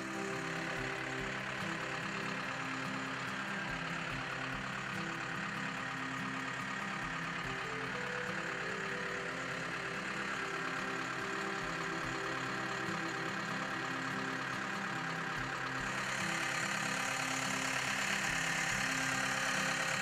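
2006 Case 430 skid steer's diesel engine running steadily at idle, growing a little louder and brighter about sixteen seconds in.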